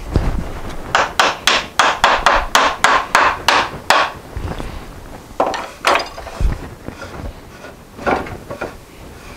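Wooden face vise of an old cabinetmaker's workbench being worked by hand, wood rubbing on wood: a quick run of about a dozen short strokes, roughly three a second, then a few more spaced strokes and a couple of dull knocks.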